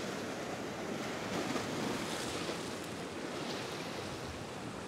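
Ocean surf washing over and around a rock shelf, a steady rush of water that swells slightly in the first half as a wave breaks over the rocks.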